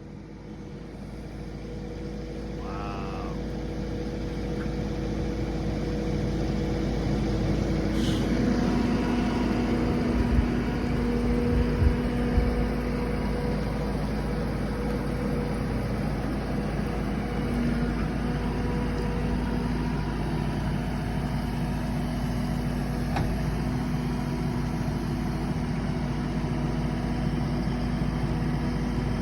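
Kubota SVL95-2s compact track loader with a disc mulcher attachment, its diesel engine running steadily. The sound grows louder over the first several seconds and then holds, with a few heavy knocks about ten to twelve seconds in.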